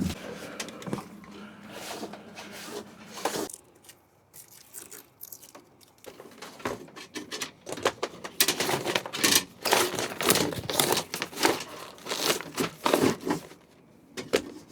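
Irregular rustling, scraping and crinkling as an electrical wire is snaked through the boat, denser and louder in the second half.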